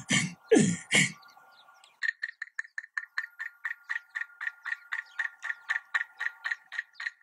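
Short, forceful rhythmic breaths and voice sounds in the first second. Then, from about two seconds in, small hand-held percussion struck in a steady beat of about four clicks a second, each click with a short bright ring.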